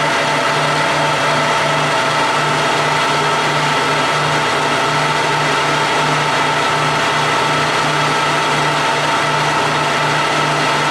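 Clausing Colchester 15x50 geared-head lathe running at 840 RPM while taking a light, dry finish cut. It makes a steady whine with several high tones, over a low hum that pulses a few times a second.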